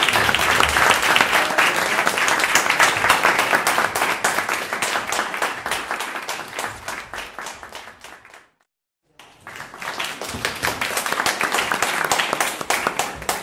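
Audience applauding, the clapping slowly dying away, then breaking off abruptly about eight and a half seconds in; after a short gap a second round of applause starts and stops near the end.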